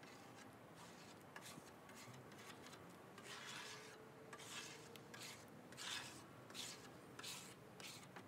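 Scraper pushing softened varnish and paint-stripper sludge off a teak tabletop: a faint run of short scraping strokes, about one a second and stronger in the second half.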